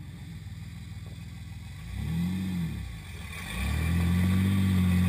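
An engine running low, revving up and back down once about two seconds in, then rising again and holding a steady, louder pitch from about three and a half seconds.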